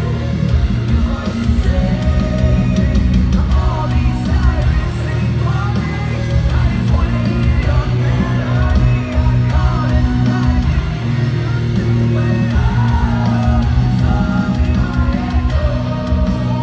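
Live rock band playing loudly, with heavy electric guitars, drums and keyboards, and a lead singer's vocals over them, recorded from the crowd.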